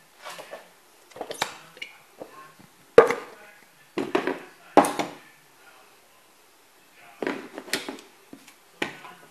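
Kitchen clatter: a series of short, sharp knocks and clacks at irregular times as containers and utensils are handled and set down on a wooden board. The loudest is a hard knock about three seconds in.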